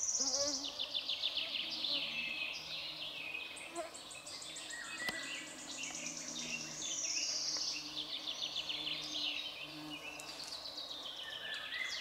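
Songbirds singing in forest: rapid trills that each fall in pitch over a second or two, repeated and overlapping, over a faint low insect buzz.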